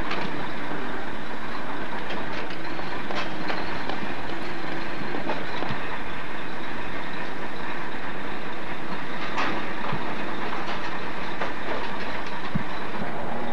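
Heavy diesel boom truck's engine running steadily, with a constant rattling clatter over it.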